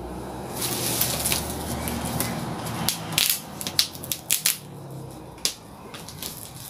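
White foam packaging bag around a boxed cutting machine rustling and crinkling as hands grip and shift it, with a run of sharp crackles about halfway through.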